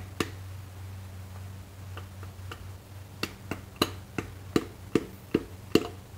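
Hammer tapping a connecting rod in a bare engine block to drive the piston out. There are a few separate knocks, then steady taps about three a second in the second half.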